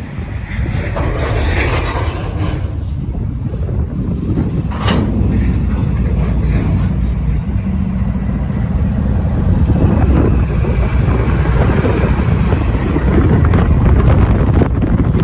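Union Pacific freight train of empty rock cars running by: a steady low rumble from the locomotives and wheels on the rails that grows a little louder toward the end, with a few short hissing bursts in the first five seconds.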